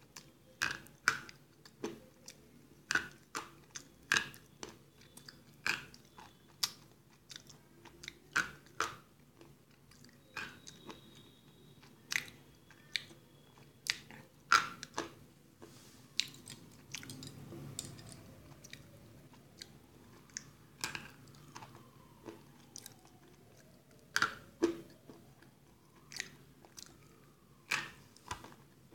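Eagle-brand slate pencils being bitten and chewed: sharp, dry crunches at an irregular pace, often one or two a second, with softer chewing between the bites.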